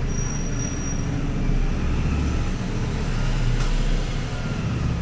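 Steady low rumble of background noise, with a brief thin high whistle in the first second and a faint click about three and a half seconds in.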